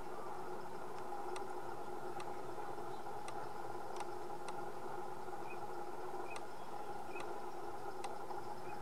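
A steady mechanical drone of several held tones, unchanging in level, with faint scattered clicks over it.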